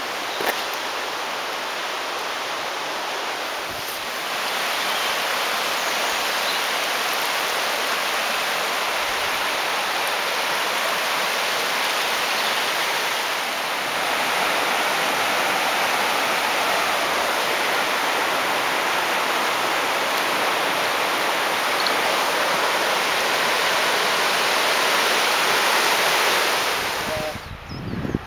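Rushing river rapids: a steady roar of fast white water that grows louder about four seconds in and cuts off sharply near the end.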